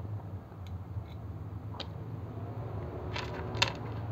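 A few light clicks and taps from handling small electronic parts, a metal head-unit bracket and a ribbon cable, on a workbench, with the sharpest click near the end. A steady low hum runs underneath.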